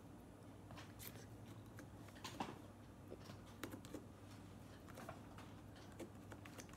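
Near silence: faint room hum with a few soft clicks and rustles scattered through.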